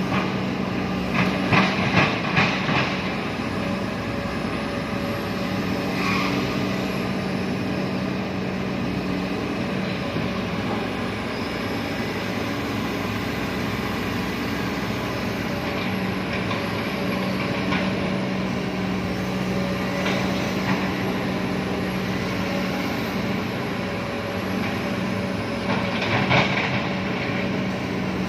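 Excavator's diesel engine running steadily, with a cluster of sharp metal clanks about two seconds in, one more a few seconds later, and another near the end.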